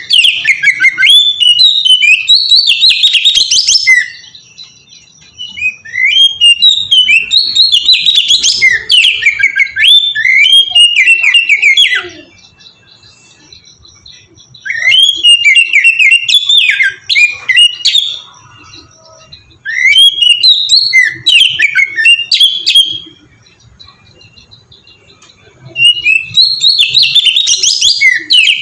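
Oriental magpie-robin (kacer) singing loud, rapid, varied whistled phrases in five bouts of a few seconds each, with short pauses between them.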